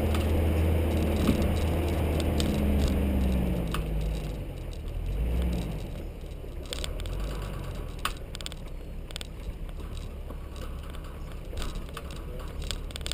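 Nissan GU Patrol's TB45 petrol straight-six running for the first few seconds, its note falling away about four seconds in. After that mostly tyre noise on the dirt track is left, with scattered clicks and rattles.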